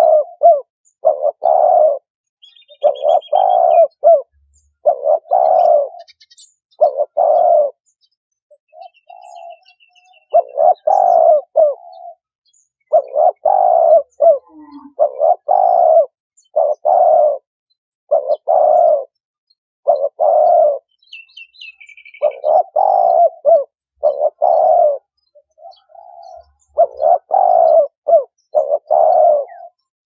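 Turtle dove cooing, loud and close: a long run of low coos in groups, with short pauses between groups. A few faint, high twittering calls of another small bird come in now and then.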